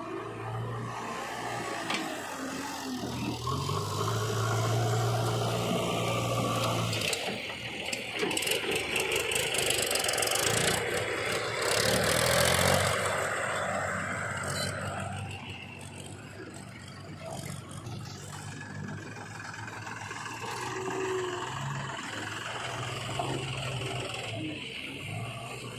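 Diesel engines of heavy machinery running at a steady low hum, getting louder and noisier for several seconds in the middle before settling back.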